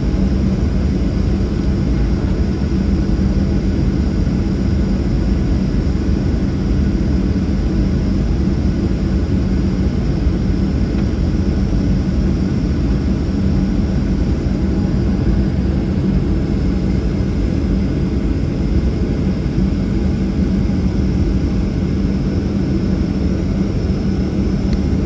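Boeing 737-800's CFM56-7B jet engines running at low thrust while taxiing, heard from inside the cabin: a steady rumble with a constant low hum.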